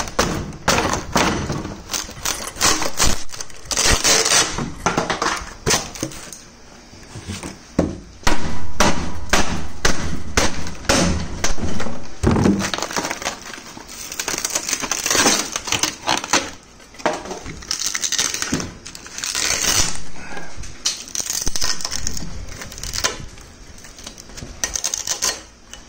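A hammer knocking old fiberglass off a wing's tubular metal spar: many sharp knocks, irregular, mixed with the cracking and crunching of the fiberglass as it breaks and pops away. The fiberglass is only lightly bonded and comes off with a few hits.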